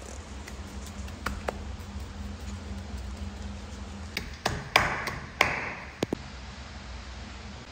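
Hand patting and rubbing gold leaf onto a smooth plastered wall: scattered light taps and clicks, then about four seconds in a quick run of taps with two short rustling sweeps as the palm smooths the leaf down.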